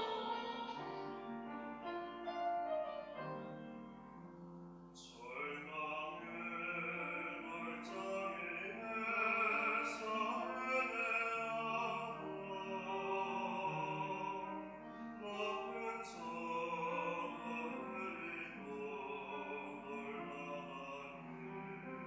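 Mixed church choir singing a hymn in parts with piano accompaniment. The voices ease off around four seconds in, then come back in fuller about a second later, with sharp sibilant consonants now and then.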